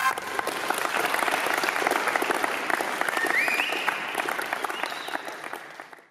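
A group of people clapping together, a dense run of claps with a short rising call about three seconds in, fading out toward the end.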